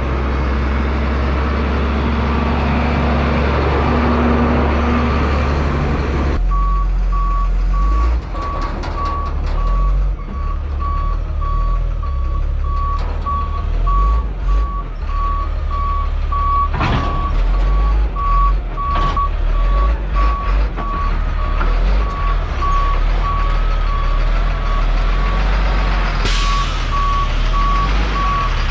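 Work truck's diesel engine running as it reverses, its back-up alarm beeping steadily with evenly spaced beeps starting about six seconds in, along with a few scattered knocks.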